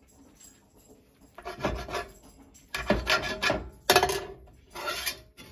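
Metal slotted spatula scraping across the bottom of a cast-iron skillet as it cuts and lifts food, four scrapes about a second apart starting about a second and a half in.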